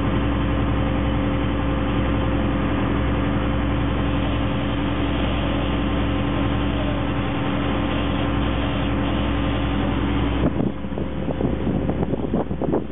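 A gulet's inboard engine running steadily under way, with a deep low rumble and a constant hum. Near the end the engine sound stops abruptly and gusty, uneven noise takes over.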